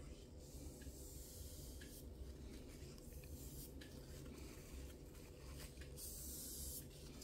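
Faint rubbing of a cloth wiping the freshly sharpened knife clean, in a few soft strokes over a low steady hum.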